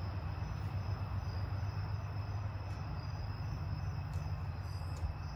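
Outdoor night ambience: a steady low rumble with faint crickets chirping and a few faint clicks.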